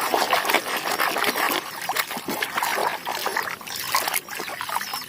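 Water splashing and sloshing irregularly as muddy toys are washed by hand, easing off a little in the second half.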